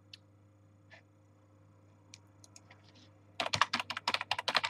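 Typing on a computer keyboard: a few scattered key clicks, then rapid continuous typing from about three and a half seconds in. A faint steady electrical hum lies underneath.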